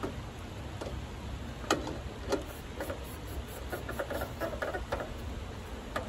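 Green metal canisters handled on a camp stove: a few sharp clinks and knocks, then a quick run of small scraping clicks around four seconds in. A steady low river rush runs underneath.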